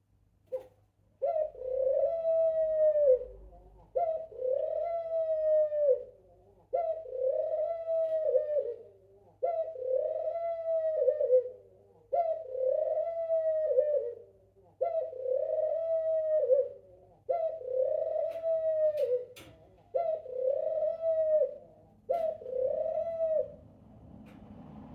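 Male pied ringneck dove cooing to his mate: nine coos in a row, one about every two and a half seconds, each a held note that drops away at the end.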